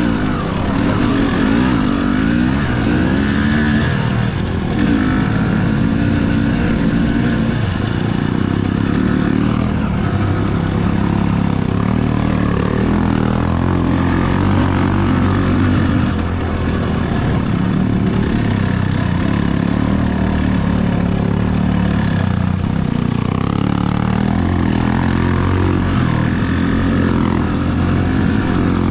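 Enduro dirt bike engine running hard under the rider, its pitch rising and falling again and again as the throttle is opened and closed over rough trail.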